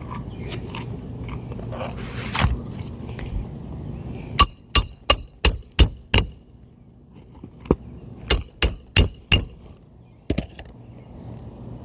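Hammer driving roofing nails through a double-layer shingle roof into the decking: a run of six quick ringing blows, a single blow, then four more, with a last tap or two near the end. Softer taps and a thud come before the blows.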